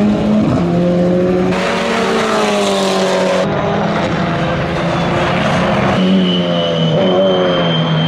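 Lynk & Co 03 TCR touring car's 2.0-litre turbocharged four-cylinder engine running hard on track, its note climbing in pitch as it accelerates, changing abruptly a few times. A thin, steady high whine sits over the engine in the last couple of seconds.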